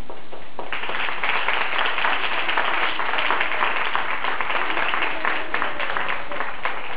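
A group of schoolchildren clapping, a dense patter of many hands that starts about a second in and keeps going, with voices heard over it near the end.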